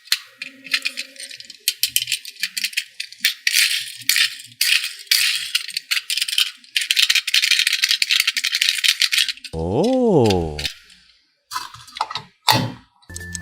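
Rapid, dense rattling, like a shaker being shaken, for about nine seconds, followed by a short rising-and-falling exclaimed "oh" and a few clicks near the end.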